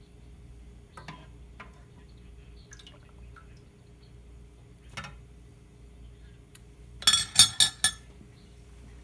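A metal spoon clinking against a frying pan and serving bowl as fried meatballs are lifted out: a few light taps, then a quick run of four or five loud clattering knocks near the end.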